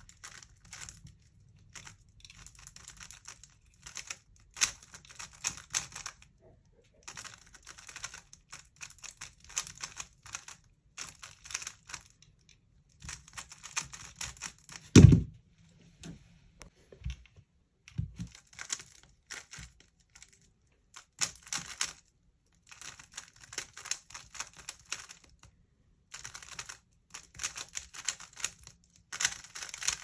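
3x3 Rubik's cube being speed-solved: rapid plastic clicking and clattering of the layers turning, in short bursts with brief pauses. A loud thump comes about halfway through.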